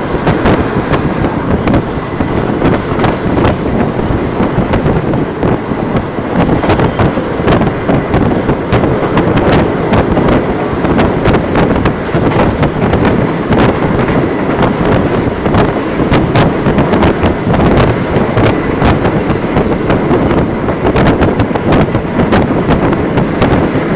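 Express passenger train passing close by at speed: a loud, continuous rush of noise with many sharp clacks of wheels over the rail joints.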